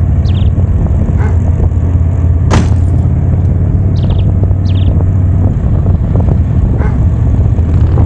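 Touring motorcycle engine running steadily at cruising speed, low-pitched and even, with wind noise over the microphone. A single sharp click about two and a half seconds in.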